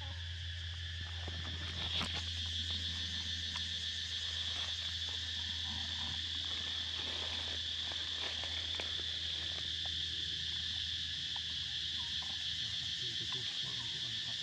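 Steady high-pitched drone of an insect chorus, a little louder from about two seconds in, with faint scattered clicks and a low hum underneath.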